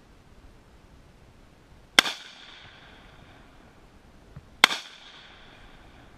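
Two rifle shots about two and a half seconds apart, each a sharp crack followed by a ringing echo that dies away within about a second.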